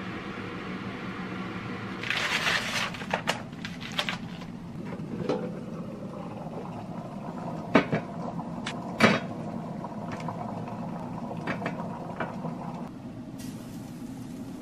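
Kitchen handling sounds over a steady low hum: a spice shaker rattles for about a second, followed by scattered light clicks, with two sharp clacks of metal cookware about eight and nine seconds in.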